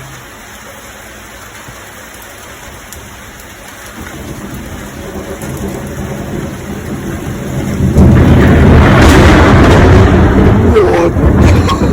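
Thunder rumbling over steady rain. A low rumble builds from about four seconds in, turns loud about two-thirds of the way through and keeps rolling.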